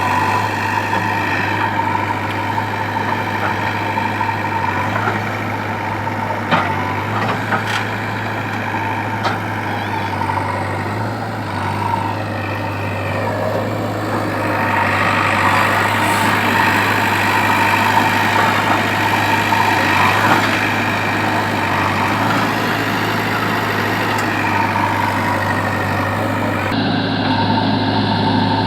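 The diesel engine of a JCB 3DX backhoe loader running steadily while working, with a few sharp clanks early on. It grows louder about halfway through.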